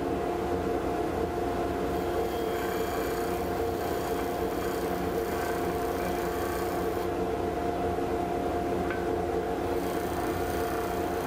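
Stationary disc sander running with a steady motor hum, an end-grain maple block held lightly against the spinning abrasive disc to flatten a hand plane's blade bed.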